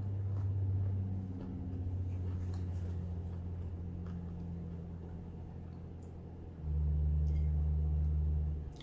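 A low steady hum or rumble that suddenly gets louder about six and a half seconds in and drops back just before the end, with a few faint clicks.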